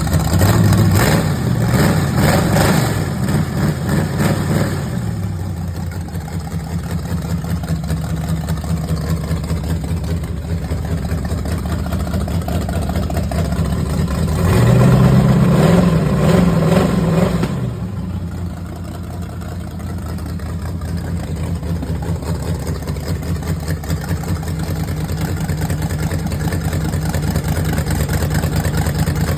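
Ford 347 stroker small-block V8 idling, revved up twice: once near the start for about three seconds and again about halfway through, dropping back to idle each time.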